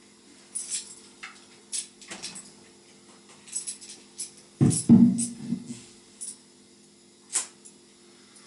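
Tambourine jingles rattling briefly and small knocks as the instruments are handled, with a louder low bump about halfway through.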